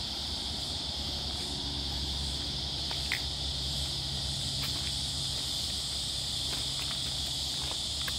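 Steady insect chorus: a continuous high drone from the surrounding bush, with a low steady rumble beneath it. A few faint clicks, one sharper about three seconds in.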